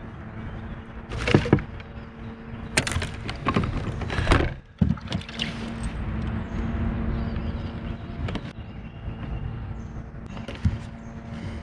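Several sharp knocks and clattering thumps from a fish and gear being handled aboard a kayak, over a steady low hum.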